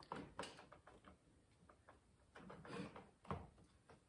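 Faint clicks and light scrapes of a long screwdriver working a screw deep inside the body of an Echo CS2511-T chainsaw, a few scattered taps against near silence.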